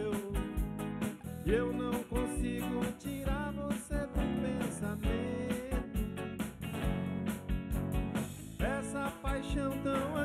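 Live band playing: drum kit keeping a steady beat under electric bass and electric guitars, with a lead vocal line coming in and out.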